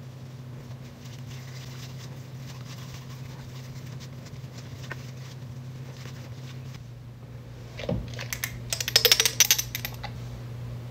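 A glass serum dropper bottle being handled: a knock about eight seconds in, then a quick run of sharp clicks lasting about a second. Under it a steady low hum, with faint soft rubbing earlier on.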